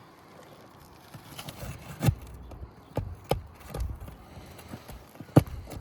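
Irregular sharp knocks and clicks, four of them louder, with some scraping between: hand work on asphalt shingles as they are lifted and worked loose on the roof.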